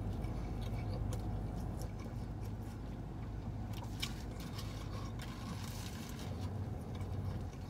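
Steady low hum inside a car, with scattered crinkles and rustles of a paper sandwich wrapper being handled.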